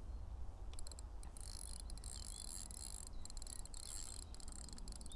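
Fixed-spool fishing reel giving a high, rapid ticking buzz that starts and stops in short runs while a hooked tench is played on a bent feeder rod.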